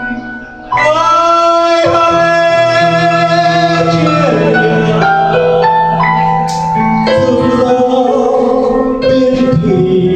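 A man singing into a microphone, holding long notes that waver near the middle, over piano accompaniment. There is a brief lull about half a second in before the voice comes back in.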